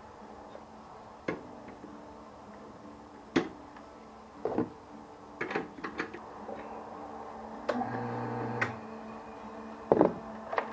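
Scattered sharp knocks and clacks, about eight in all and the loudest near the end, over a faint steady hum, with a short buzz lasting about a second a little before the last knocks.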